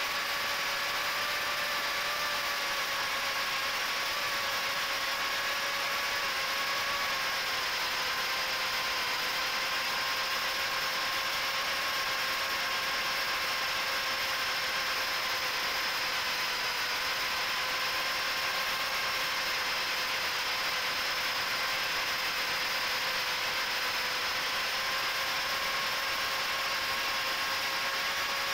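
HGLRC 1104 7500kv brushless motors spinning Gemfan 3018 propellers on a 3-inch FPV micro quadcopter in steady cruising flight, picked up close by the onboard camera: a steady whine in several pitches over a rushing hiss, wavering only slightly in pitch with the throttle.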